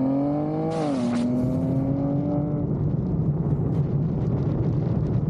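Car engine accelerating hard, its note rising, dropping once at a gear change with a short hiss about a second in, then climbing again. After about three seconds the engine note fades into steady wind and road noise.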